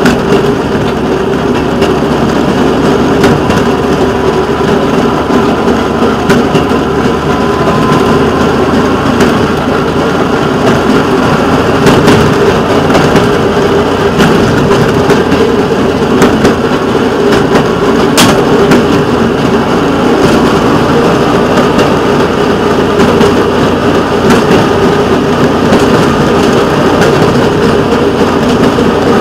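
Engine of rail vehicle WCRG 335 running steadily as it rolls along the track, with scattered clicks and knocks from the wheels on the rails and one sharper click a little past halfway.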